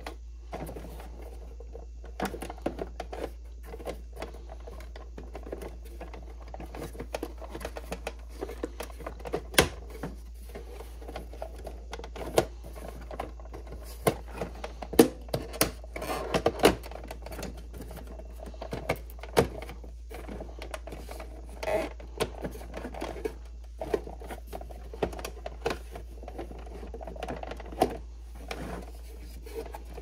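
Hard plastic housing of a Keurig K-Supreme coffee maker being worked by hand back over its brewer head: irregular plastic clicks, taps and rubbing, with several sharper snaps in the middle.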